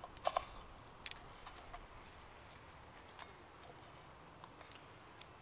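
Knife cutting an onion on a wooden cutting board: a few sharp taps of the blade on the board, two quick ones just after the start, then single sparse ones.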